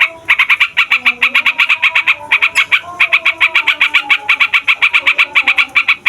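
Sooty-headed bulbul (trucukan) singing a long rolling song: a fast, even run of short chattering notes, about seven or eight a second, with brief breaks near the start and around the middle.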